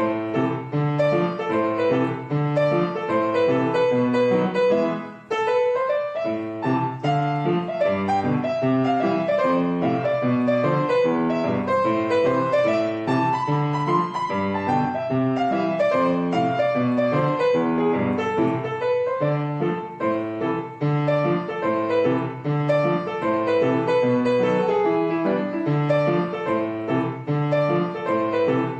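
Background music: a piano piece playing continuously, with a brief dip about five seconds in.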